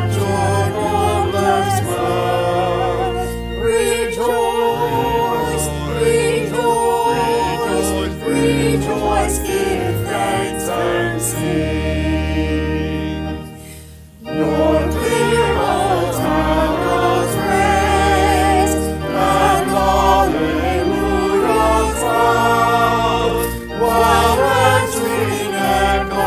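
A virtual choir of men's and women's voices singing a hymn in parts, with a short break between phrases about halfway through.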